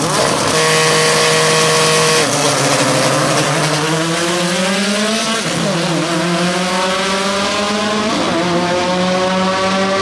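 Volkswagen Gol drag cars launching and accelerating hard: engine held at a steady high pitch for about two seconds, then climbing in pitch, with upshifts about five and a half and eight seconds in.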